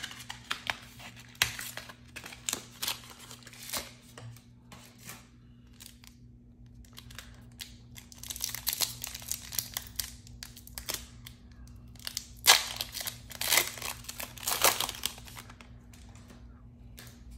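A Pokémon card booster pack's foil wrapper crinkling and tearing as it is opened by hand, with rustles of the cards being handled. The sound comes as scattered short crackles, with a denser run of crinkling about halfway through.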